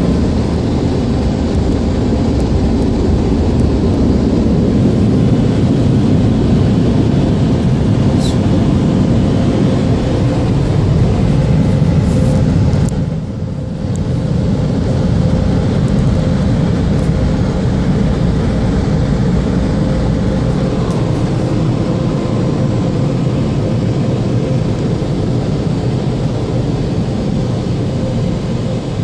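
Automatic car wash running: a steady, loud rushing noise with a faint, even hum. It dips briefly about halfway through.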